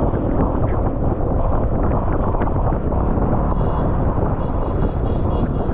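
Steady, heavy wind buffeting the microphone on a moving vehicle, with road and engine noise underneath.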